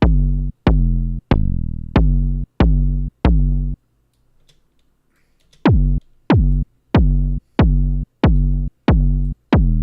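Synthesized kick drum built from an audio-feedback sample in a software sampler, triggered over and over about one and a half times a second. Each hit is a sharp click with a fast downward pitch drop into a short, heavily distorted, hardstyle-like low tone. The hits stop for about two seconds midway, then start again.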